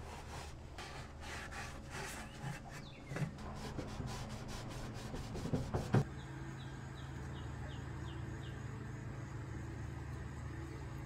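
A shop towel rubbing cooking oil over the steel inside of a Pit Boss pellet grill barrel, in quick repeated wiping strokes. About six seconds in, this cuts to a steady low hum, with a run of short high chirps soon after.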